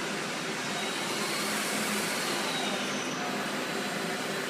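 Spindle of a 1998 Daewoo Puma 250BX CNC lathe running through its program: a steady whirring hiss with a faint high whine that rises in pitch and then falls as the spindle ramps up and back down.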